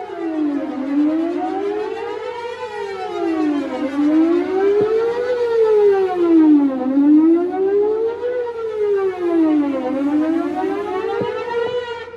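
Whelen WPS-4008 electronic outdoor warning siren sounding a wail, its pitch rising and falling about every three seconds, really loud and echoing. It cuts off near the end.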